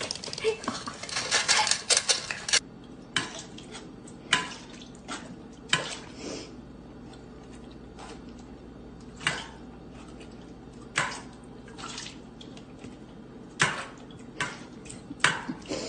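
Hard objects clinking and knocking together, like dishes: a dense clatter for about the first two and a half seconds, then single sharp clinks every second or two.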